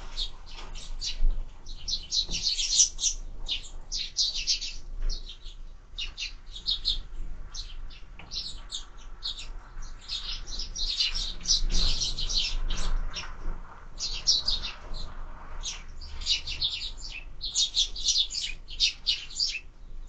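A flock of sparrows chirping busily. Many short chirps overlap almost without pause.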